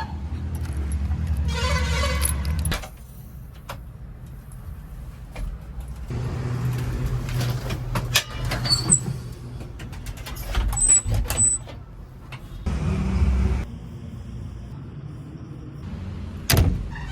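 Diesel engine of a backhoe loader or tractor running, its rumble breaking off and returning abruptly several times, with scattered clanks and knocks and one sharp knock near the end.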